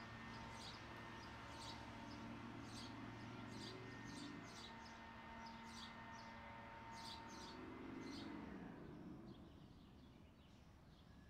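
Faint small-bird chirps: a run of quick, high, short chirps coming every half second or so, thinning out and stopping about nine seconds in, over a faint low steady background hum.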